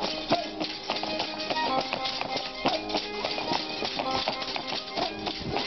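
Andean folk dance music: a melody over plucked strings and percussion, playing without a break.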